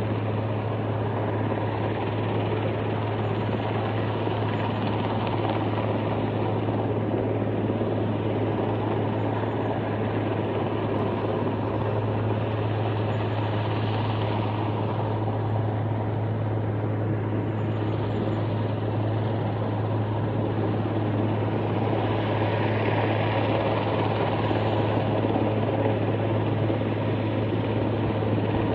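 Helicopter hovering: a steady rotor and engine noise with a constant low hum.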